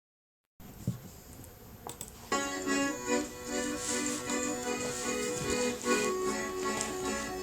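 Accordion-led music starting about two seconds in, after a couple of faint clicks: the instrumental intro of a song.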